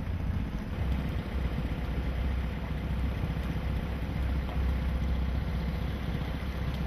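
Motorboat engine running steadily at low cruising speed, a low even drone with a faint steady hum above it.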